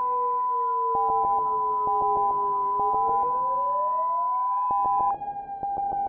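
Synthesized emergency-alert sounds: a siren wail that slowly sinks, then rises about three seconds in, under a steady high tone that cuts off suddenly about five seconds in. A short beep repeats about once a second, with scattered crackling clicks.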